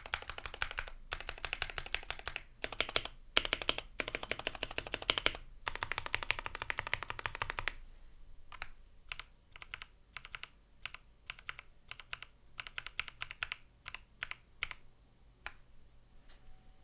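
Typing on a Corsair K70 PRO MINI Wireless mechanical keyboard with Cherry MX Silver linear switches, lubed with Krytox 205g0, with foam inside the case. Fast, continuous typing with brief pauses runs for about the first eight seconds, then slows to separate, spaced-out keystrokes.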